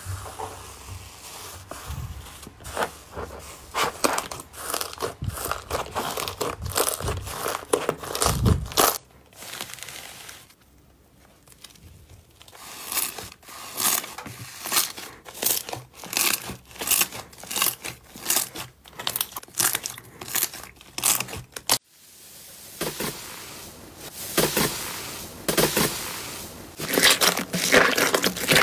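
Slime being squeezed and pressed by hand, giving dense, irregular crackling and crunching pops. The sound changes between short clips, with a quieter stretch about a third of the way in and a sudden cut about three quarters of the way in.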